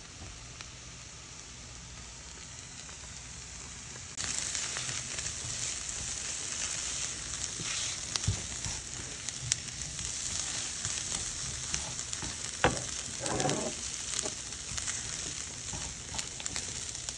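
Diced shrimp and onions sizzling in a nonstick frying pan while a silicone spatula stirs them. The sizzle jumps suddenly louder about four seconds in, and a few sharp knocks come as the food is stirred.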